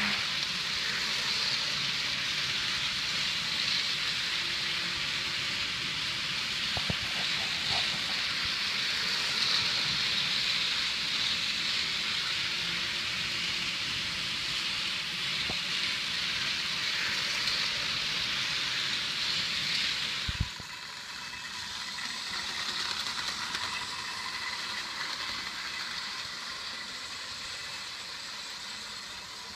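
Several N-scale model trains running on a layout, a steady high whir of small motors and wheels on rail. About 20 seconds in it changes abruptly to a Lionel O-gauge steam locomotive running on three-rail track, quieter, with a light steady motor hum.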